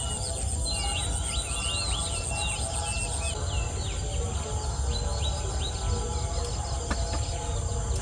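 Marsh ambience: many birds chirping in short calls over a steady high insect drone, which pulses for the first few seconds and then holds even, with a low rumble underneath.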